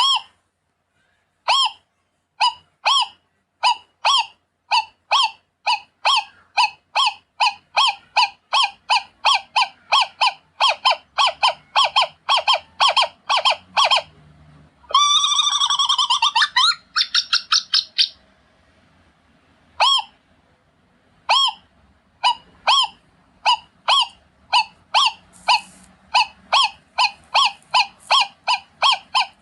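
Scops owl calling: a long series of short, sharp notes, slow at first and quickening to about three a second. About halfway through there is a brief burst of rapid, falling squeals, then after a short pause the series resumes.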